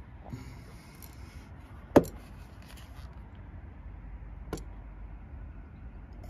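A sharp knock about two seconds in and a lighter click about two and a half seconds later, over a low steady rumble.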